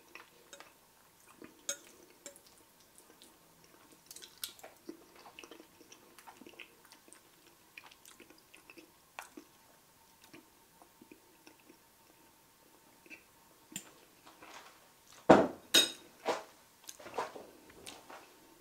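A metal fork clinking and scraping against a ceramic bowl of risotto, with chewing. Near the end come a few louder knocks and bumps as the camera is handled.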